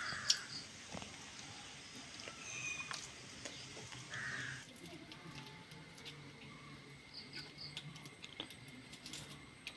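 Birds calling now and then: a couple of short harsh calls and a few brief high chirps. Scattered small clicks and taps, over a faint steady low hum.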